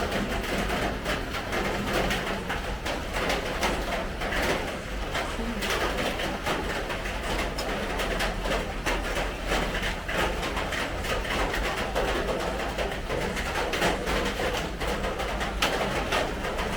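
Steady patter of rain, a dense crackle of many small drops, over the background noise of a street market.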